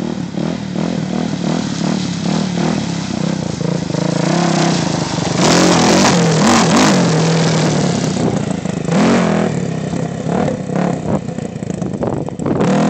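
Sport ATV engine revving up and down as the rider pulls a wheelie. It is loudest as the quad passes close about halfway through, then falls back as it rides off, with a few more revs later on.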